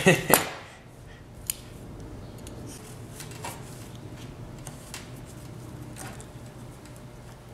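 Long-nose pliers clicking and clinking against a metal brake master cylinder as it is worked by hand: two loud metallic clacks right at the start, a sharp click about a second and a half in, then light scattered clicks over a faint steady hum.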